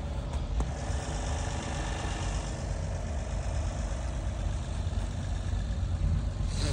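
A motor vehicle's engine idling steadily with a low rumble.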